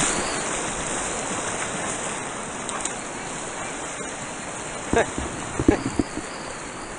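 Steady rush of river water around a downriver kayak, heard from a GoPro on the boat, with a few brief louder sounds about five to six seconds in.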